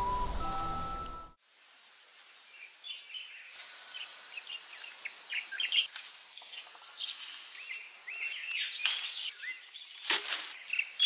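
Background music cuts off about a second in, then birds chirp and twitter over a steady high hiss of outdoor ambience.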